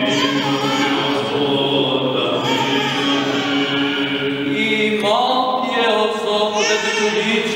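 Orthodox liturgical chant sung by the clergy and chanters: several men's voices together holding long notes, with ornamented phrases that rise in pitch now and then.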